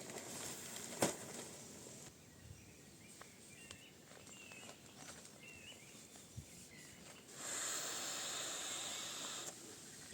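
Quiet outdoor ambience with a few short bird chirps. A sharp click comes about a second in, and a steady rushing hiss rises for about two seconds near the end.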